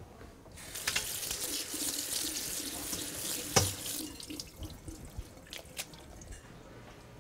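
Kitchen tap running cold water over boiled perogies in a stainless-steel colander in the sink, with a sharp knock about three and a half seconds in. The water stops about four seconds in.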